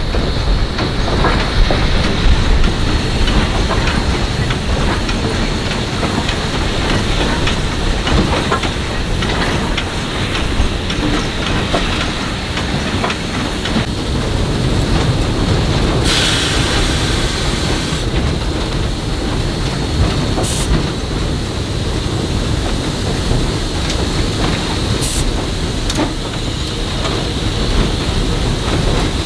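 Narrow-gauge steam locomotive working upgrade, heard from the cab: a steady loud running noise of the engine and wheels on the rail, with many small clicks. Just past the middle a hiss lasts about two seconds.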